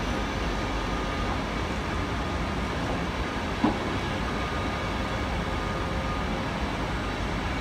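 ÖBB passenger coaches rolling past on the rails, a steady rumble of wheels and running gear with one short sharp knock about three and a half seconds in.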